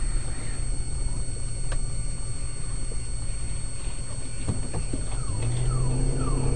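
Steady low engine and road rumble inside a moving car. Near the end a low steady tone and a string of short falling chirps come in.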